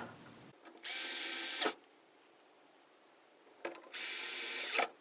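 Power screwdriver driving in the screws that hold a display's hub card: two short, steady whirring runs of about a second each, a few seconds apart.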